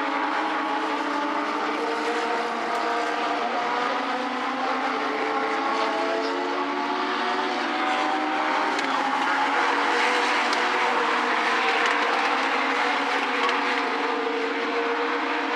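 Several Legends race cars running at racing speed, their Yamaha four-cylinder motorcycle engines overlapping as the cars lap past, each engine's pitch rising and falling. The sound swells a little about ten seconds in.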